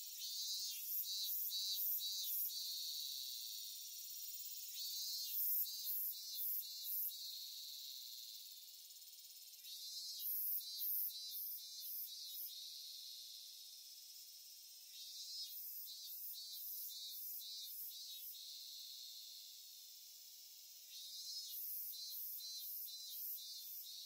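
Cicada calling in repeated phrases about every five seconds, five in all. Each phrase is a short buzzy rise that breaks into about four pulses, over a steady high insect hiss.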